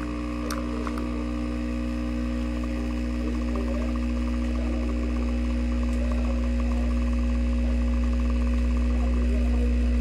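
JASSY capsule espresso machine's vibratory pump humming steadily as it pushes water through the capsule and espresso runs into the cup, getting slightly louder as the shot goes on.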